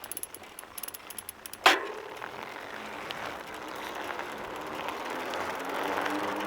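Bicycle: a run of quick irregular ticking clicks, then one sharp clank about a second and a half in, followed by rolling noise that slowly grows louder.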